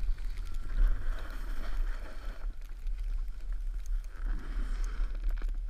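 Wind rumbling on an action camera's microphone while riding down a ski slope, with the hiss of a snowboard sliding and scraping over snow in two spells.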